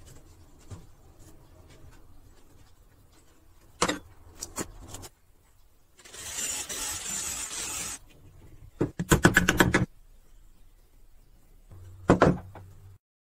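A cordless drill runs steadily for about two seconds, boring a hole into a pine block. Sharp wooden knocks come before and after it, loudest in a rapid clatter of knocks just after the drilling.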